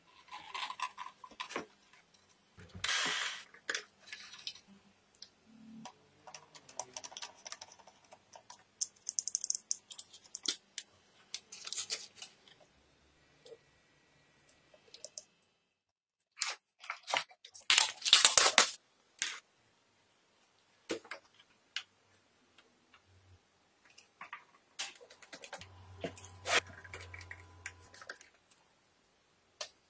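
A string of short handling noises from hands working small parts: clicks, taps, rubbing and scraping, coming in separate bursts with gaps between. The loudest cluster comes a little past the middle.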